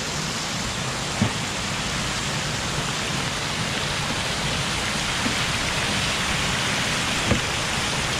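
Steady rush of water from a rain-swollen waterfall, growing a little louder over the seconds, with two short dull knocks, one about a second in and one near the end.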